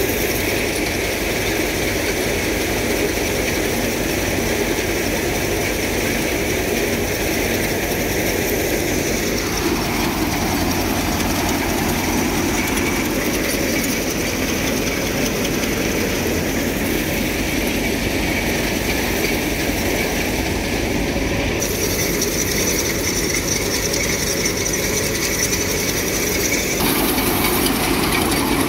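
Tractor-driven grain thresher running steadily under load, a Mahindra Yuvo Tech Plus 575 DI diesel tractor turning its drum and blower as straw is fed in and chaff is blown out. The tone shifts abruptly a few times.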